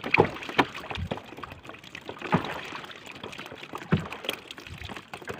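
Water splashing and sloshing, broken by irregular sharp knocks and clicks.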